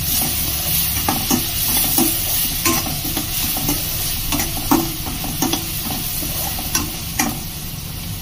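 Chopped onions and green chillies sizzling in hot mustard oil in a stainless-steel kadai, stirred with a metal spoon that scrapes and clinks against the pan every half second to a second.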